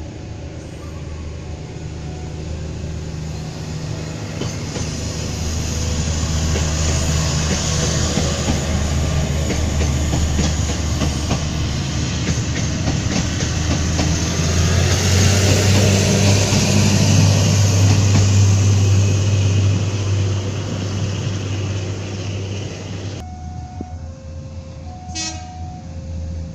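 Ex-KRD diesel railcar set passing close by: engine running and wheels clattering on the rails, growing louder to a peak past the halfway point and then easing. The sound drops off abruptly near the end, leaving a quieter background.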